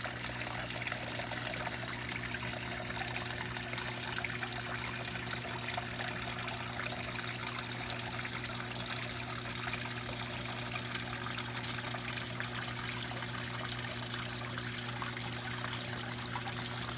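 Water from a small paludarium waterfall trickling and splashing steadily, with a low, steady hum underneath.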